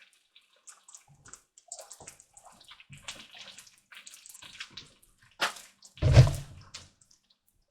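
An egg frying in canola oil in a pan, sizzling with scattered crackles. A sharp click about five and a half seconds in, then a loud knock just after, the loudest sound here.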